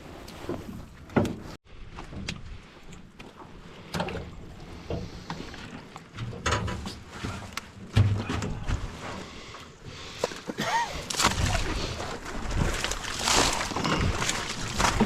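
Irregular knocks and thunks aboard a small boat with water sloshing, growing into a louder, denser rushing noise over the last few seconds.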